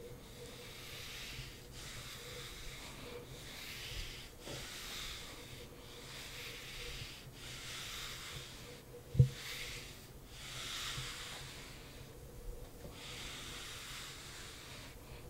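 Whiteboard eraser rubbing across a whiteboard in repeated swishing strokes, with a single short knock about nine seconds in.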